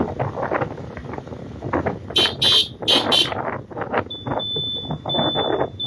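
Motorcycle riding with wind buffeting the microphone. About two seconds in comes a quick run of four short horn toots. From about four seconds a high electronic beep starts, pulsing on and off about one and a half times a second.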